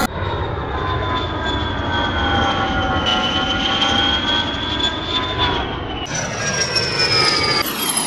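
Airliner engine noise, a steady roar with high whining tones, in digitally altered versions. The sound switches abruptly about six seconds in to a brighter version whose whines slowly fall, and changes again just before the end.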